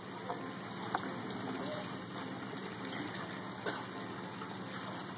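Steady rushing of running water, with a few faint knocks.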